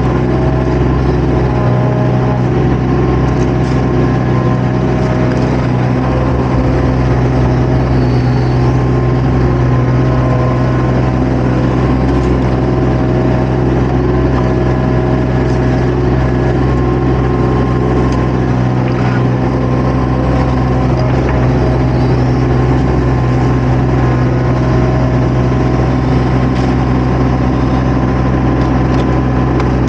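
Diesel engine of a compact construction machine (mini excavator or skid steer) running steadily at a constant speed, loud and close, with no change in pace.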